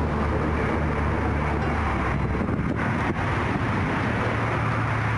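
Wind buffeting the microphone outdoors: a loud, steady rushing rumble with no breaks.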